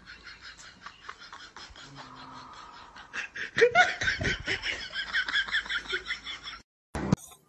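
A person laughing in quick, breathy pulses that grow much louder about three and a half seconds in, then cut off suddenly, with a brief thump just after.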